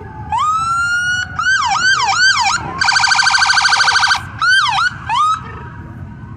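Sheriff's patrol SUV electronic siren sounded in short bursts: a rising wail, then quick yelps, a fast warbling tone for about a second and a half, and a few more yelps, cutting off after about five seconds.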